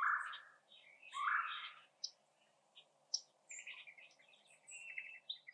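Crows cawing: two loud, harsh caws in the first two seconds, then a run of quieter calls later on, with small birds chirping high above them.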